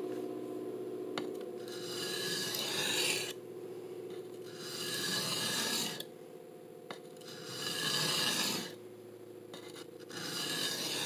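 Knife blade of CPM M4 steel drawn freehand across a coarse 325-grit DMT diamond plate, a dry gritty rasp in four slow strokes about a second and a half each, grinding the edge back to repair and reprofile it.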